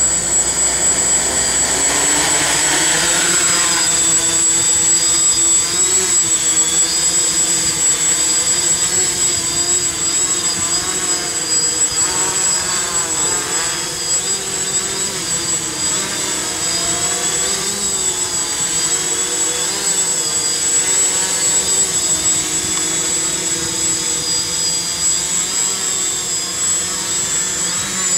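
XAircraft X650 V4 quadcopter's electric motors and propellers, rising in pitch a few seconds in as it lifts off, then buzzing steadily in flight with the pitch wavering up and down as the motors adjust. A steady high whine sits above it.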